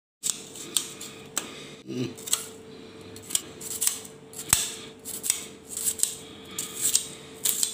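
Dry onion skin being peeled by hand, crackling and tearing in short crisp strokes about twice a second. A faint steady hum runs under it.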